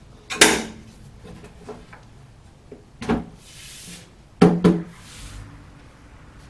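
Folding workbench being unfolded and set on its feet: knocks and clanks of the metal folding legs and half-inch plywood top, one about half a second in, another about three seconds in, and the loudest pair in quick succession past the middle.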